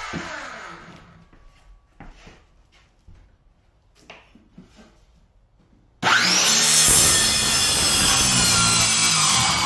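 Power saw with a dull wood-cutting blade winding down, its whine falling away, then a few light knocks and scrapes. About six seconds in the saw starts up again with a quick rising whine and cuts into wood, loud and steady.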